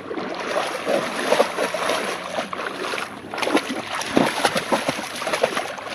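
A German Shepherd puppy splashing through shallow lake water: a run of irregular splashes, one after another.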